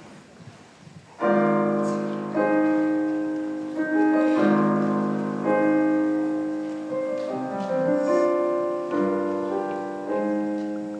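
Piano playing a slow introduction in sustained chords, starting about a second in. Each chord is struck and left to fade before the next, about one a second.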